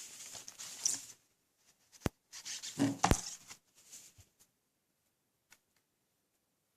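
Hands handling DVD packaging: plastic rustling twice, with a sharp click about two seconds in and another about three seconds in, then a few faint ticks.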